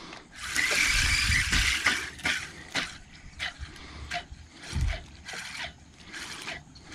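Spinning fishing reel being worked as the line is brought in: a stretch of hiss early on, then a run of regular mechanical clicks, about two to three a second.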